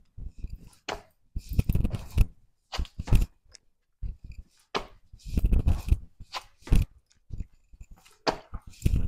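Burpees on a hard concrete floor: hands slapping down and sneakers thudding as the feet jump back and land, in uneven clusters of impacts about every one to two seconds.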